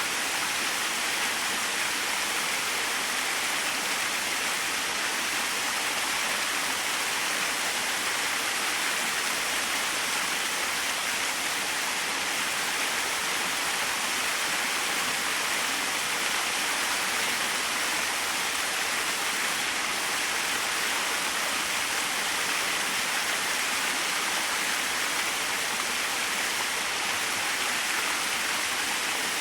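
Small waterfall splashing steadily, an even rushing hiss with no breaks.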